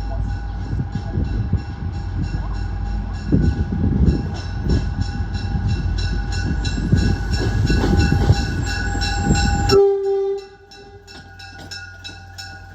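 The horn on an MBTA Comet cab car (CTC-1B 1631) sounds a long, loud multi-tone blast over the rumble of the arriving commuter train, then cuts off suddenly about ten seconds in. A locomotive bell rings at a steady beat underneath and carries on faintly after the horn stops.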